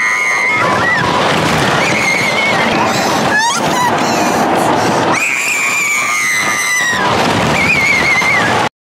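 People screaming in long, high-pitched shrieks over a steady rush of noise, the longest held for about two seconds past the middle. The sound cuts out abruptly near the end.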